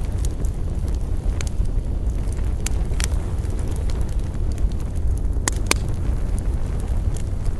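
Wood campfire burning: sharp crackles and pops from the burning wood, a few seconds apart with a close pair about five and a half seconds in, over a steady low rumble.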